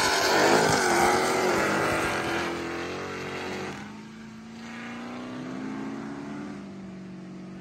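Hellcat-swapped Chrysler 300's supercharged V8 running hard as the car accelerates away down the road, loud at first and fading with distance. About four seconds in it drops to a fainter, steadier engine drone.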